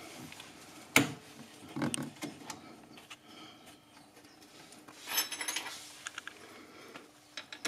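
Metal clicks and scrapes of parts being handled on a VW Beetle rear drum brake backing plate: a sharp click about a second in, a longer scraping rattle around five seconds, and a few small clicks near the end.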